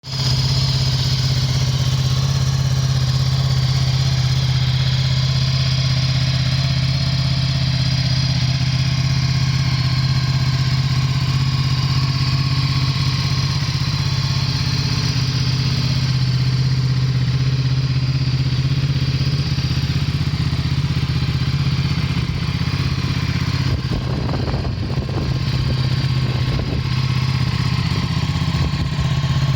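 Ducati Multistrada 1260 S's L-twin engine idling steadily at an even pitch, with a short stretch of irregular clatter late on.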